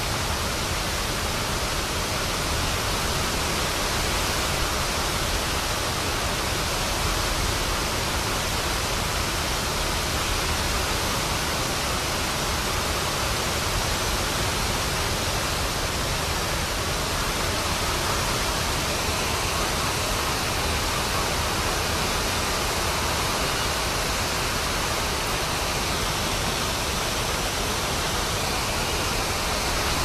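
Water pouring over a low dam spillway and crashing onto the rocks below: a steady, even rush.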